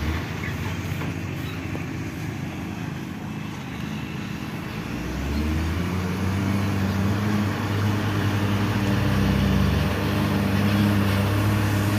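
Hino dump truck's diesel engine running as the truck drives slowly with its tipper bed raised. Its steady low engine note grows louder from about halfway through as the truck comes closer.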